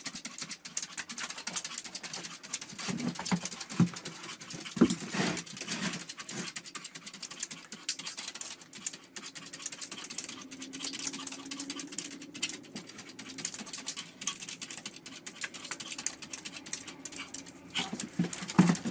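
Small fluffy puppy scratching rapidly and continuously at a glass door with its front paws.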